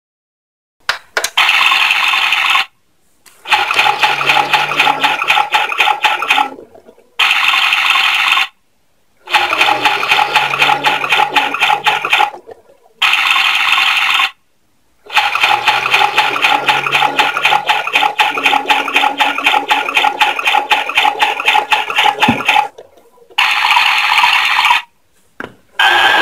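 Toy washing machine running its programmes: electronic washing and water sound effects from its small speaker, with a rattling, clicking texture and a low motor hum under it. The sound comes in stretches of a few seconds, broken by short silences as programmes stop and restart.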